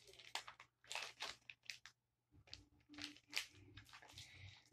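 Faint crinkling and rustling of a foil trading-card booster pack being handled, a string of short crackles.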